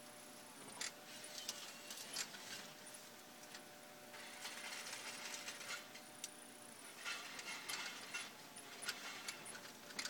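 Inside the cab of a Kubota 035 mini excavator: a faint steady machine hum under frequent clicking and rattling of the cab and its fittings, coming in busy spells.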